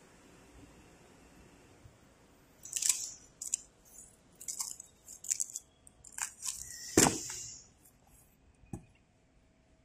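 Corrugated cardboard crunching and scraping as the cut-away waste is pulled off a die-cut box blank: a run of short crunches starting about three seconds in, the loudest near seven seconds, then a single thump about nine seconds in.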